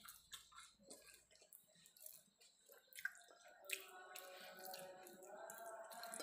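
Faint, sparse wet squishes and small clicks of fingers kneading and scooping rice on a ceramic plate, with quiet music coming in about halfway.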